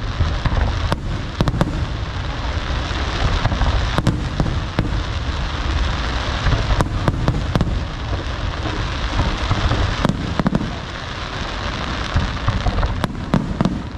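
Fireworks display going off: many sharp bangs over a continuous dense crackling and a low rumble.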